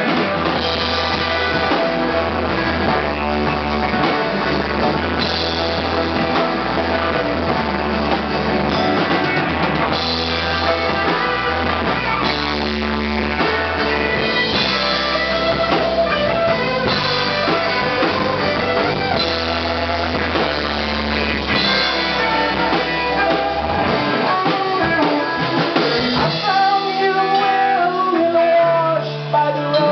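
Live rock band playing with electric guitars, bass guitar and drum kit. The bass drops out about twenty-four seconds in, leaving guitar on top.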